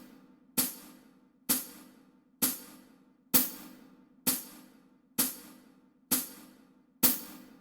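A steady click-track beat: a sharp, cymbal-like tick about once every 0.9 seconds, each dying away quickly, eight in all.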